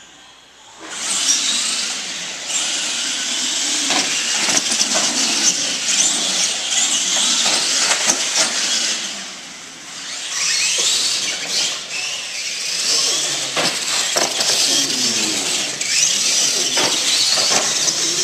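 Radio-controlled monster trucks racing: their motors whine, rising and falling in pitch with the throttle, over the hiss of tyres on the track. The sound starts about a second in, dips briefly partway through, then picks up again.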